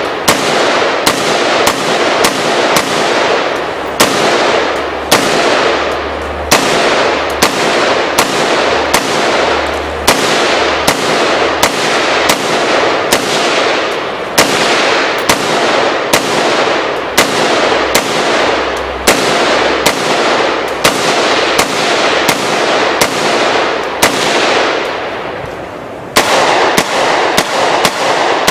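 Rapid semi-automatic fire from an American Tactical Omni Hybrid AR-15-type rifle, about two shots a second, each shot ringing out in echo. There is a short lull shortly before the end, then another fast string of shots.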